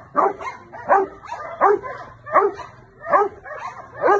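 Adult male Rottweiler barking in a steady series, about six barks, one every three-quarters of a second, while lunging on its leash toward a person.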